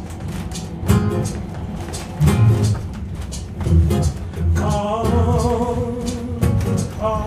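Acoustic guitar played with a steady run of plucked and strummed strokes. A man's singing voice comes in about two-thirds of the way through with a held, wavering note over the guitar.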